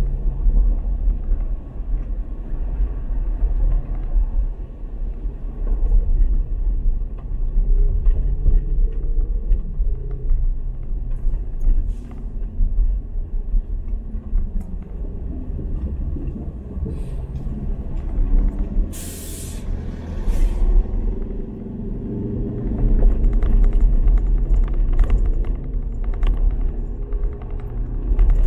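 Car being driven: a steady low rumble of engine and road noise, with two short, sharp hisses about two-thirds of the way through.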